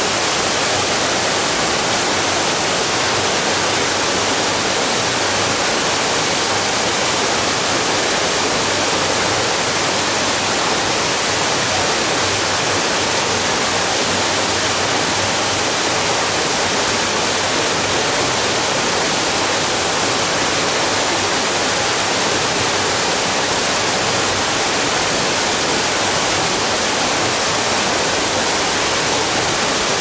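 Small waterfall pouring down a rock face into a pool: a steady, even rush of falling and splashing water.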